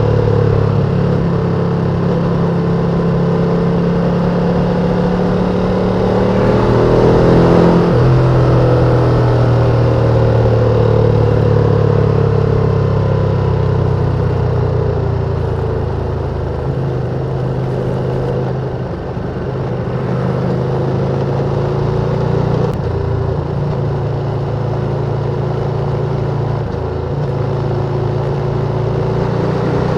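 Ducati sportbike engines running at riding speed, with wind and road noise. The engine note swells and shifts in pitch about seven to eight seconds in, then settles to a steady cruise, easing off briefly near nineteen seconds.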